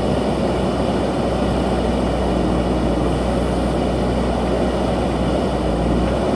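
JCB backhoe loader's diesel engine running steadily, with a constant low hum.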